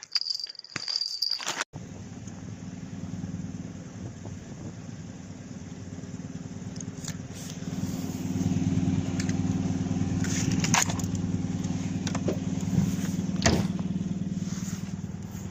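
Motor vehicle engine running steadily with a low hum that grows somewhat louder about halfway through, with a few light knocks and clicks. A short high tone with clicking comes before it, in the first second and a half.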